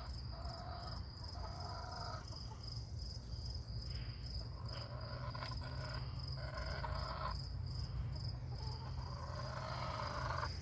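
Hen giving a series of drawn-out calls, the nest call of a hen about to lay an egg, over a steady high chirring of crickets.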